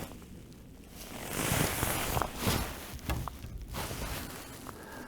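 A kayak being worked past a fallen tree in the river: paddle swishes and rustling, loudest about a second and a half in, with a few light knocks.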